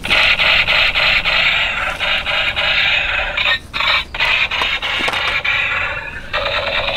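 Electronic firing sound effect from a battery-powered toy shotgun's small speaker: a thin, loud, rapid crackling buzz. It breaks off briefly twice about halfway through, and turns into a wavering tone near the end.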